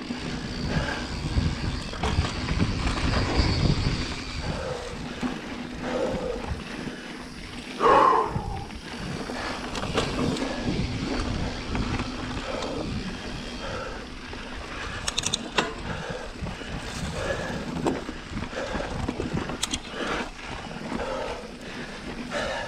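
Mountain bike rolling over a dirt trail: tyre rumble and wind buffeting the mic, with the chain and frame clicking and rattling over bumps. One loud, short pitched sound stands out about eight seconds in.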